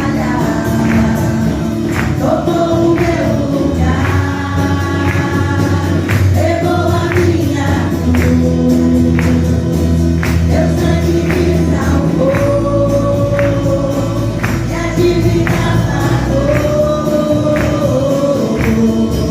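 Gospel worship song: singers holding long sung lines over a steady bass, with a regular percussion beat.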